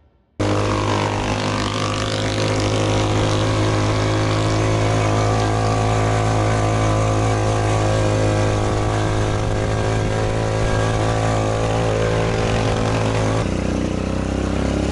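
A motor vehicle's engine running at a steady speed. It cuts in abruptly and changes character near the end.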